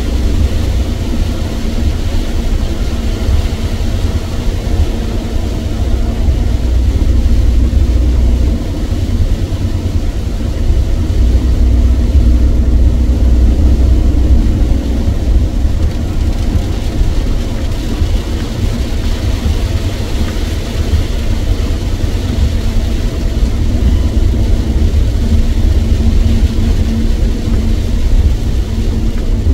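Steady road and engine rumble inside a car's cabin at motorway speed, with an even hiss from wet tyres and rain over it.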